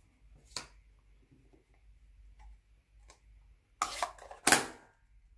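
Plastic ink pad case being handled on a craft mat. There is a light click about half a second in, then two short scraping rustles near the end as the case is picked up.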